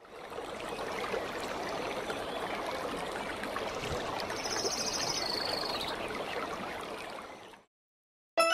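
Small waterfall and stream running, an even rushing of water, with a short high, rapid trill from a small creature about halfway through. The water fades out about a second before the end, and music starts right at the end.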